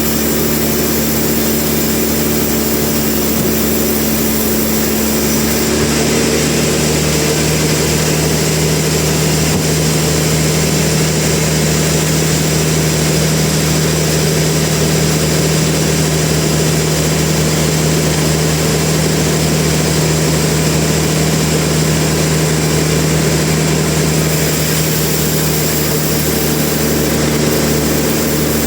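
Heavy sawmill machinery running steadily with an engine-like drone, its tone shifting slightly about six seconds in and again near the end.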